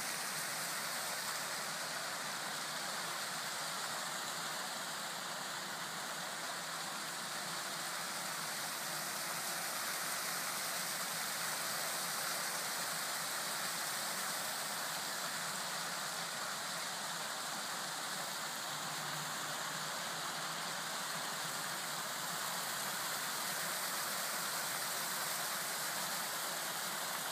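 Fountain jets spraying and splashing back into the basin, a steady rush of falling water.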